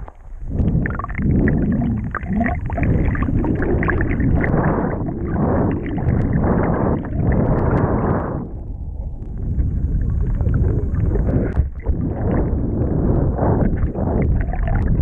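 Muffled rushing and gurgling of water against a camera held underwater alongside a moving kayak's hull. The rush thins briefly about halfway through, then picks up again.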